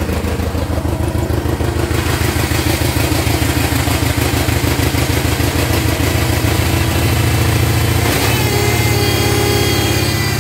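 Bolens QT16 garden tractor's engine running steadily, still cold just after a cold start, with the choke being eased back. About eight seconds in, its note changes as the engine settles at a different speed.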